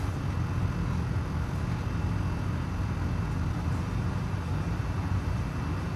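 Steady low background hum with no distinct events.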